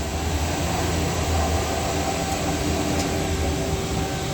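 Mazak QTS-350 CNC lathe running with a steady machine hum as its programmable tailstock travels back. The low drone of the move eases off about three and a half seconds in, while a higher steady tone carries on.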